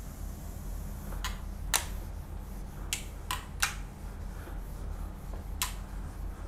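Whiteboard being wiped clean with a duster: about six sharp clicks and knocks against the board, over a steady low electrical hum.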